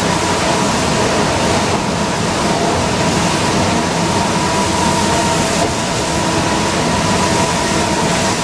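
Inside an Orion V transit bus cruising at highway speed on wet pavement: a steady drone of engine and drivetrain with a constant whine, under a loud hiss of tyres on the wet road.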